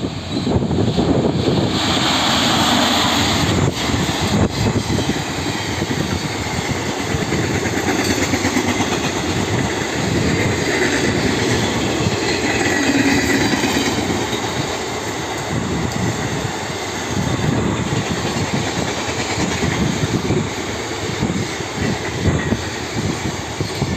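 Electric locomotive-hauled passenger train passing: a continuous rumble of coach wheels on the rails with an irregular clatter over the track.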